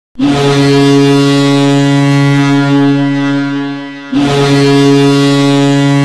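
Ice hockey arena goal horn: a deep, steady ship-style horn blast lasting about four seconds and dipping slightly at its end, then a second blast starting straight after it.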